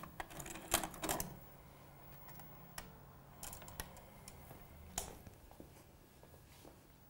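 Mechanical clicks and clunks of a video cassette deck as its buttons are pressed, a close cluster in the first second, then a few single clicks later, over a faint steady low hum.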